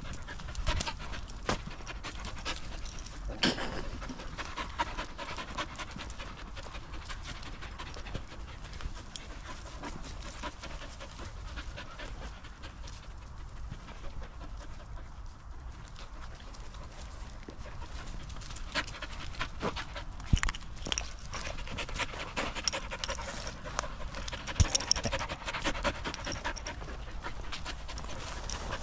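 Dogs panting close by, with scattered crunches and clicks of footsteps on a woodland path strewn with leaves and twigs.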